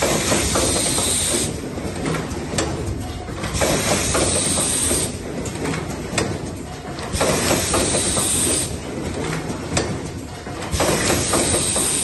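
Automatic power-cord production machine cycling: its pneumatic actuators give a compressed-air hiss about every three and a half seconds, each burst lasting about a second and a half, over a steady mechanical run with sharp clicks and clunks.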